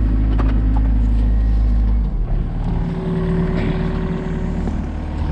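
Engine running steadily with a low drone, which drops in level about two seconds in, after which a steady hum comes in for a couple of seconds.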